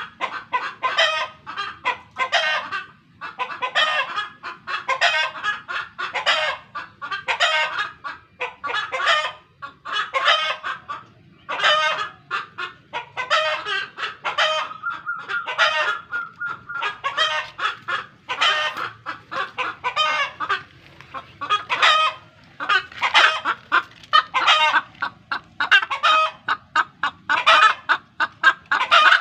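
Roosters clucking in rapid, repeated short calls, with one longer drawn-out call about halfway through.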